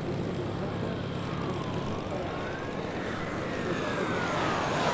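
Air Tractor AT-802 Fireboss turboprop firefighting aircraft flying, a steady engine and propeller drone. A faint siren wails under it, rising and falling slowly about every two seconds.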